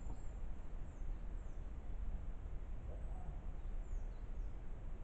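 Woodland ambience: a steady low rumble of wind on the microphone, with a few faint, high bird chirps now and then.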